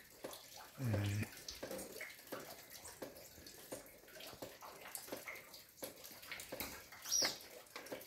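Faint garden ambience of scattered small ticks and drips, with a short low hum from a man's voice about a second in and one brief high chirp from a small bird about seven seconds in.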